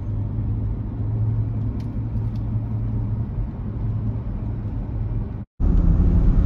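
Steady low rumble of a vehicle driving, engine and road noise. It breaks off abruptly about five and a half seconds in and comes back louder and deeper.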